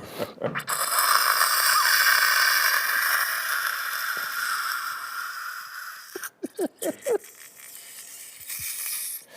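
A man's mouth-made imitation of an espresso machine's steam wand frothing milk for a latte. A long steady hiss slowly fades over about five seconds, then a few short squeaky gurgles come about six to seven seconds in, and a fainter hiss follows near the end.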